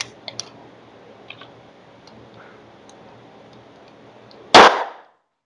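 A single loud gunshot about four and a half seconds in, after a few light clicks; the sound cuts off abruptly about half a second later.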